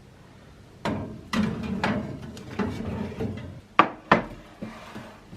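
Oven door opened and a baking tray taken out and set down: a run of knocks and clatters, then two sharp clacks a little before the end.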